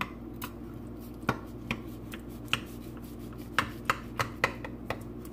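Utensil tapping and knocking against a baking dish, about ten sharp irregular taps with a quick cluster in the second half, as the baked potato-and-chicken casserole is cut and served. A steady low hum runs underneath.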